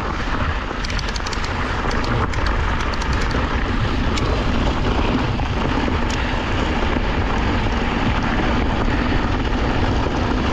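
Wind rushing over the microphone and tyres rolling on dirt as a Yeti SB 150 mountain bike is ridden down a trail. Sharp clicks and rattles come in a cluster between about one and three seconds in, and once or twice more later.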